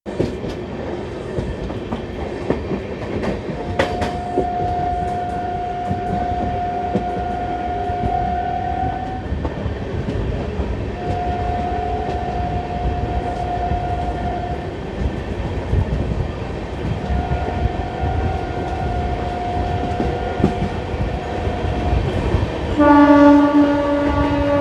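Indian Railways WAP-7 electric locomotive's horn over a train running on the rails with wheel clatter. A single-pitch horn note sounds three times, each about four to five seconds long, and about 23 seconds in a louder, lower horn chord of several notes begins.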